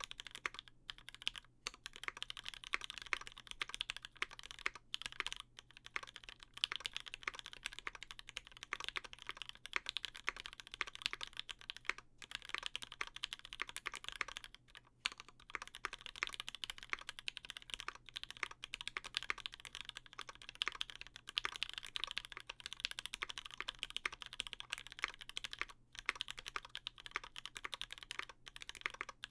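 Steady fast typing on a custom mechanical keyboard with lubed Gateron Ink linear switches, an aluminium plate and GMK keycaps: a dense run of keystroke clacks with a few short pauses.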